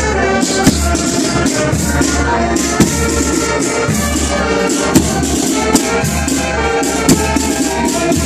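Marching band playing a tune on flutes, saxophones and other brass over a steady drum beat, with a loud percussive hit about every two seconds.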